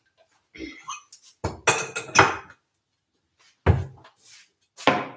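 Crockery being handled on a kitchen counter: a few clinks and scraping clatter, then two sharp knocks near the end as dishes are set down.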